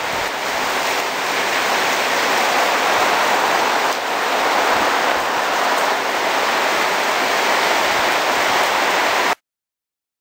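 Torrential rain pouring down in a steady, dense hiss. It cuts off suddenly near the end.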